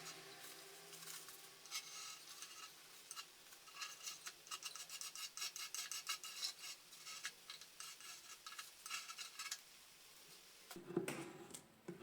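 Rapid, short scraping strokes worked by hand over the wooden cash-register drawer, in quick uneven runs. A louder clatter comes near the end.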